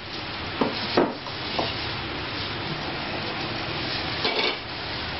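A cleaver chopping on a cutting board, a few sharp knocks in the first two seconds, over a steady hiss.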